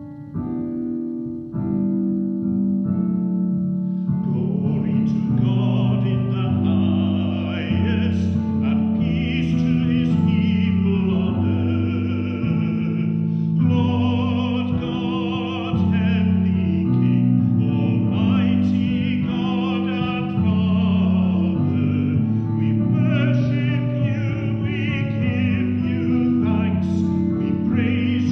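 Sung church music: a few seconds of keyboard chords as an introduction, then a classically trained voice with vibrato comes in about four seconds in and sings over the keyboard accompaniment, a hymn or sung setting of praise in the liturgy.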